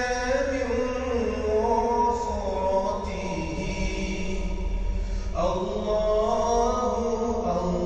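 Background music: a chanted, sung vocal line with long held notes that glide between pitches, changing phrase about five seconds in.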